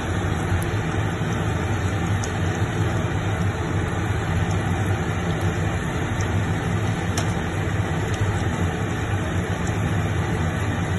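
Breaded pork cutlet frying in hot oil, a steady sizzle with scattered small pops, over a steady low hum.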